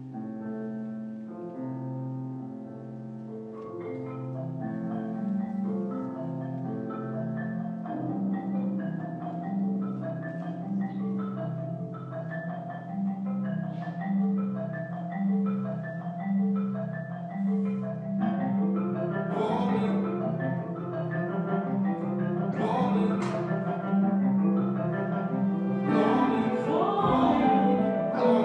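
Live contemporary chamber ensemble music: a repeating pattern of low pitched notes, about one a second, with mallet-like notes layered above. It grows denser and louder about two-thirds of the way through, with sharp high accents near the end.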